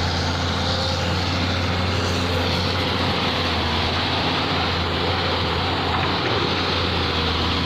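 Old dump truck's diesel engine running steadily with an even low hum.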